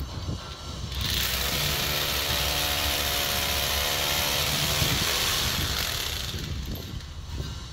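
Electric hammer drill boring into a concrete floor. It starts running about a second in, runs steadily for about five seconds, then trails off.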